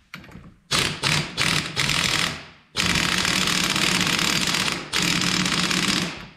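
Air impact wrench hammering in bursts: four short bursts in the first two seconds or so, then a long burst of about two seconds and another of about a second. It is run in reverse to tighten the left-hand-threaded clutch hub nut on a Honda ATC 250ES.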